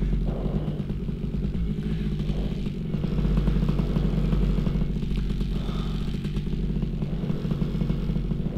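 Paramotor's two-stroke engine running steadily at low power, a pre-flight warm-up before launch.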